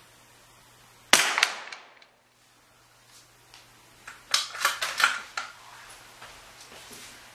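A single shot from a CZ 455 Thumbhole .22 LR bolt-action rifle, a sharp crack about a second in that rings off briefly in the indoor range. About three seconds later comes a quick run of five or six sharp clicks and knocks.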